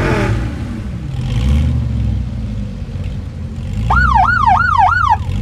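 Sports car engines running with a low, steady rumble and a slow rise in engine note about two seconds in. Near the end a siren-style electronic yelp wails up and down four quick times over about a second.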